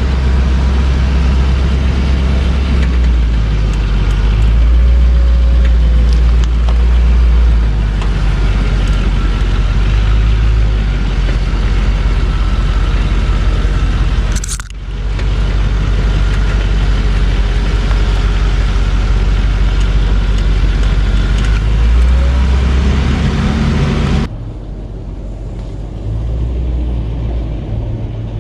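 Land Rover Discovery II driving off-road, its engine and drivetrain making a loud, steady low rumble. A short sharp break comes about halfway through. Near the end the sound turns quieter and thinner.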